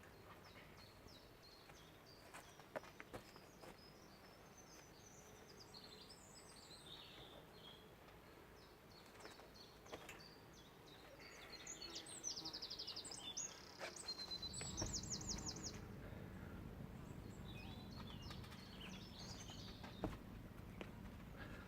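Wild birds chirping and singing, including a fast trill about halfway through, with a few faint knocks. A low rumble rises from about two-thirds of the way through.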